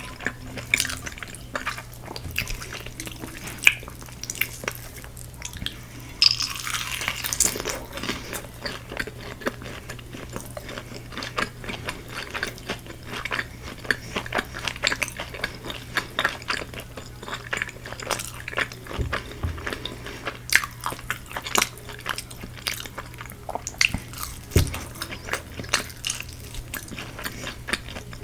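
Close-miked eating of Korean fried chicken: crisp crunching bites and chewing, a dense run of crackling crunches about six to eight seconds in.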